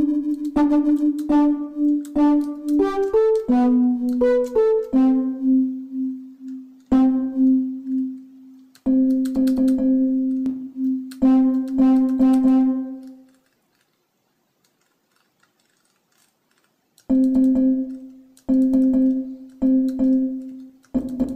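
Teenage Engineering OP-1 synthesizer playing a sampled sound through spring reverb, with the LFO set to modulate the sample playback. Single keys are tapped over and over, each note a quick stutter of re-attacks, mostly on one low note with a short climb to higher notes a few seconds in. The notes stop for about four seconds past the middle, then the repeated note comes back.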